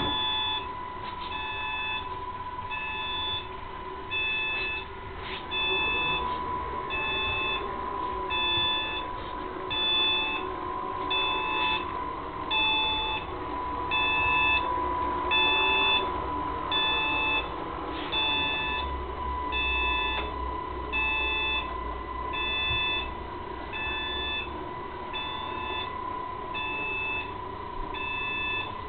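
Electronic warning beeper on a radio-controlled Tamiya Scania truck, beeping steadily about once a second over a constant electronic tone and the wavering whine of the model's drive.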